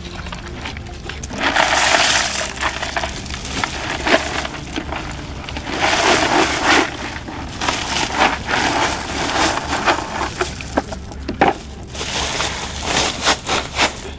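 A bucketful of mud-coated rough horn snail shells clattering and crunching as it is handled and poured into a woven sack: rushes of rattling with many sharp clicks.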